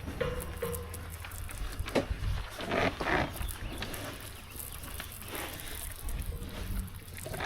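Cows bawling, a few separate calls about three seconds in and again after five seconds, over a low steady rumble: cows calling for calves they can't find.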